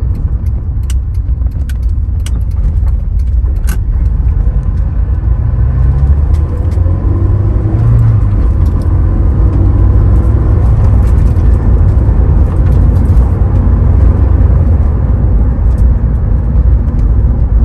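Honda S2000's four-cylinder engine and road noise heard from inside the cabin while driving: a steady low rumble, with the engine note changing pitch about six to eight seconds in. A few light clicks come in the first few seconds.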